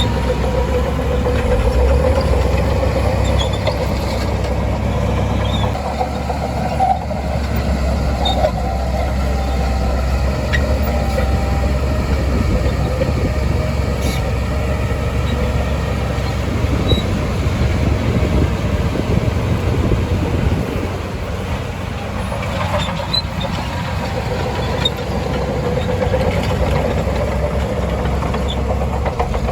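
Shantui DH17C2 crawler bulldozer working, its diesel engine rumbling steadily with the clatter of its steel tracks and occasional brief squeaks and clicks.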